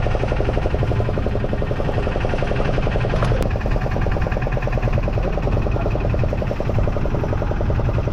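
A fishing boat's engine running steadily, a fast even pulsing over a low rumble.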